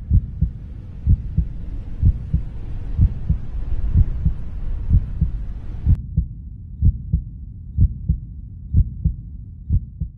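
Deep heartbeat sound effect: low double thumps, about one pair a second, over a soft hiss that cuts off abruptly about six seconds in.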